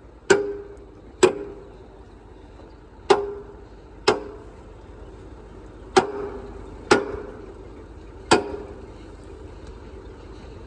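A hand hammer striking the metal outlet pipe fitting at the back of a vacuum truck's tank: seven sharp clanging blows at uneven gaps of one to two seconds, each followed by a short metallic ring.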